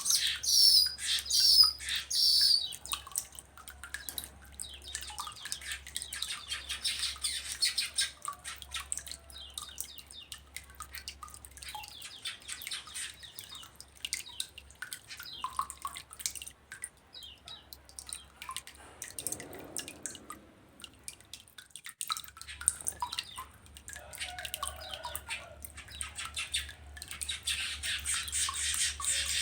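Streaked weaver (manyar jambul) singing: a long run of rapid, buzzy chattering and high chirps, with clear descending notes that are loudest in the first two seconds and again near the end.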